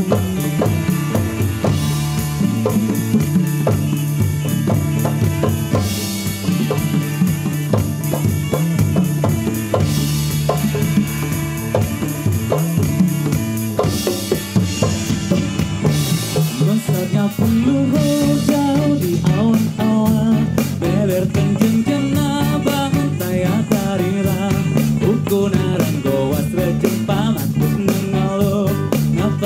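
Instrumental music with a steady drum-kit beat over sustained bass notes, with cymbal crashes every few seconds; a melodic lead line comes in a little past halfway.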